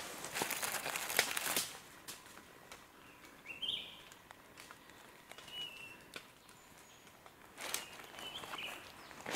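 Rustling and crunching in dry leaf litter, in a spell near the start and another shorter one about eight seconds in, with a few short bird chirps between them.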